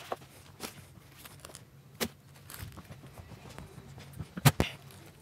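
Light handling noises from a MacBook Pro being moved on a bench: scattered small clicks and knocks, with two sharp clicks close together about four and a half seconds in, over a low steady hum.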